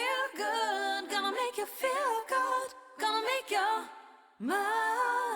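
Unaccompanied singing in short phrases, with a brief pause about four seconds in, then a phrase that swoops up into longer held notes.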